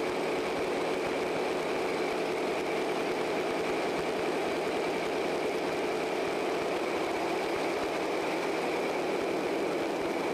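Fireboat's marine diesel engine running steadily in the enclosed engine room: an even drone with a steady higher whine over it and no change in speed.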